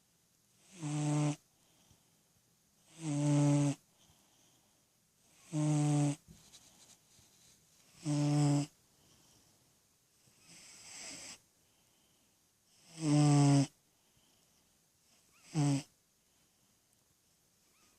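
Domestic cat snoring in its sleep: seven pitched snores, one every two to three seconds. The snore about eleven seconds in is fainter, and the last one is short.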